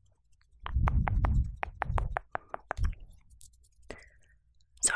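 Close-miked dry mouth sounds: a quick run of about a dozen sharp tongue clicks over two seconds, with a low rumble under the first few, then a few scattered clicks.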